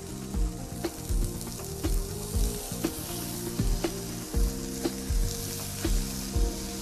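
Halloumi slices sizzling as they are laid one after another onto a hot non-stick grill pan, the hiss growing louder about halfway through as more slices go in. Background music with a steady beat plays underneath.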